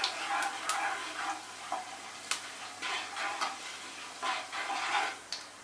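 Cumin seeds sizzling in hot mustard oil in a nonstick kadai, stirred with a wooden spatula that scrapes and taps lightly and irregularly against the pan.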